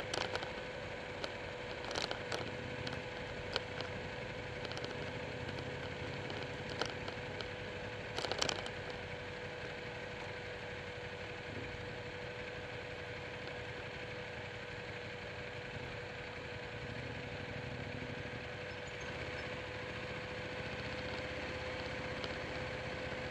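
Motorcycle engine running steadily at low speed, heard from a camera mounted on the bike, with a constant high hum and a few sharp ticks in the first half.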